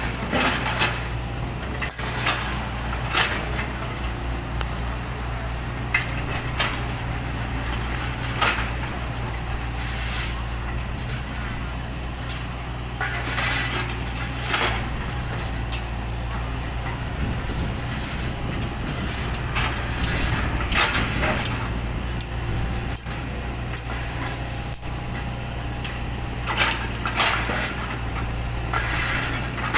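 A heavy engine runs steadily at idle, with irregular scrapes and knocks over it every second or two.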